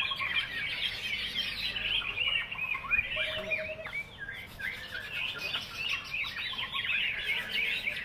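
Many caged greater green leafbirds (cucak ijo) singing at once: a dense, unbroken chatter of overlapping chirps and quick whistled glides.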